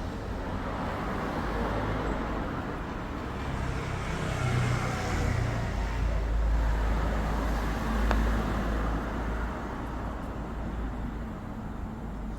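Car engine running steadily while refrigerant is charged into the air-conditioning system. The sound swells for a few seconds in the middle, and there is a single short click about eight seconds in.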